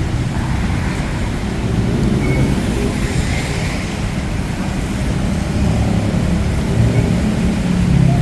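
Steady city road traffic on a rain-wet street: a low rumble of car and bus engines under an even hiss of tyres and rain.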